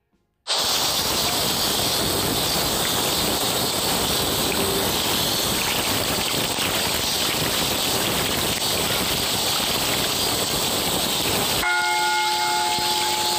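Steady rushing outdoor noise from played-back beach footage. Near the end a bell ding of several ringing tones sounds once as the subscribe-button bell animation appears.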